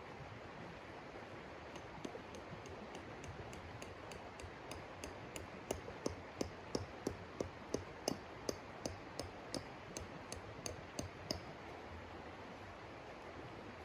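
A run of evenly spaced sharp knocks, about three a second, faint at first and then louder before stopping a few seconds before the end, over a steady background hiss.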